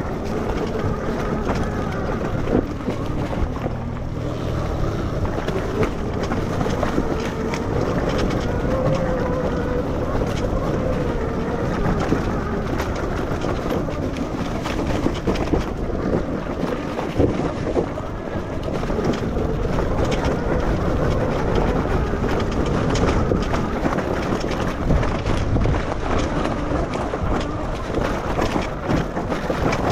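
Electric enduro motorcycle with an MG160A 12 kW motor ridden over a dirt trail at part throttle: a faint whine that wavers up and down with speed under a steady rush of wind and ground noise, with frequent knocks and rattles from the bike over rough ground.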